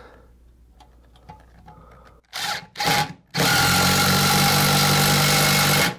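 Ridgid cordless impact driver driving a lag bolt through a TV wall-mount plate into a wall stud, left short of fully tight. Two short bursts come about halfway in, then a steady run of about two and a half seconds that cuts off suddenly near the end.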